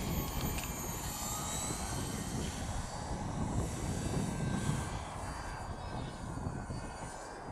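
Twin-engine model seaplane's motors and propellers running, a high steady drone with slowly drifting tones, over low wind rumble on the microphone.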